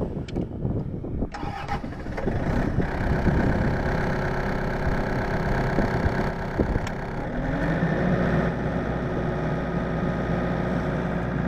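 Generator engine starting up after a few knocks and clicks, then running steadily, with a brief rise in pitch partway through.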